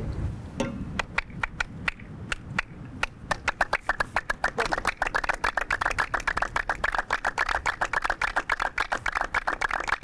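A group of men hand-clapping the 'kaff bahri', the sea-style clapping rhythm of Egyptian Red Sea folk music. It starts with a few scattered claps and settles into a fast, regular, interlocking group rhythm about three seconds in.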